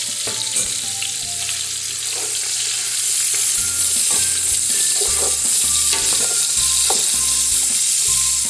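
Sliced linguiça sausage sizzling as it fries in bacon fat in a metal pot, stirred with a wooden spoon that scrapes and taps against the pot now and then. The sizzle grows louder about three seconds in.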